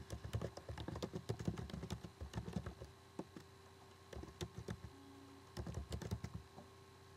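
Typing on a computer keyboard: quick runs of key clicks as an email address is entered, a pause about three seconds in, then two shorter runs as a password is typed.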